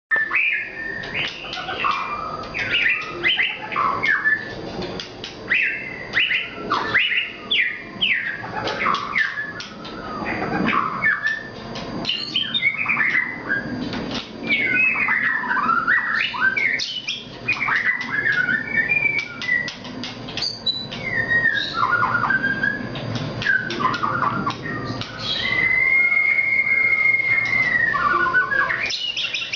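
White-rumped shama of the Nias strain (murai batu Nias) singing continuously in full song. It mixes varied whistles, sweeping notes and rapid chattering phrases, and holds one long steady whistle near the end.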